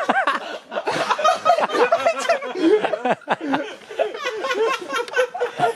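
People laughing and exclaiming, in short, quickly changing bursts of voice with no words caught.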